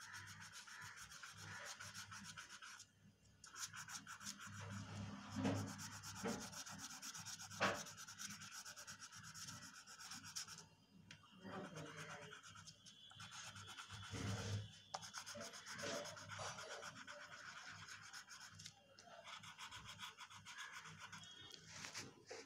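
Colouring strokes on paper: a pencil or crayon rubbed rapidly back and forth to fill in a drawing. The strokes come in runs broken by short pauses, with a few soft bumps of the paper or hand.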